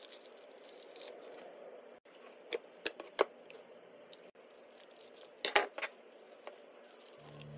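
Latex balloon handled with a faint rubbing hiss, then sharp clicks as fingers press slime in a plastic tub, then a louder scissor snip about five and a half seconds in as the balloon's tip is cut off. Music starts near the end.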